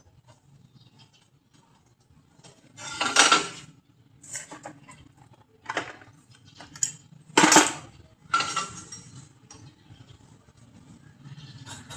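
Pieces of metal clanking and clinking as they are handled during fabrication work: about five separate knocks spread a second or so apart, the loudest a little past a quarter of the way in and again past the middle.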